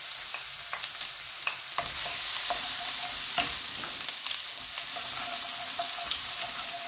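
Sesame oil sizzling in a wok as chopped ginger and garlic fry in the tempering of mustard seeds, fennel and dals, with sharp crackles and pops throughout. A wooden spoon stirs the pan, and the sizzle swells about two seconds in.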